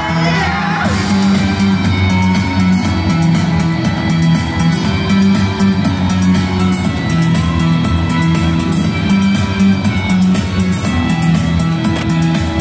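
Loud live rock music through a hall's sound system: a repeating electric guitar riff over bass and drums. The singing breaks off just after the start, and fast cymbal strokes come in about a second in.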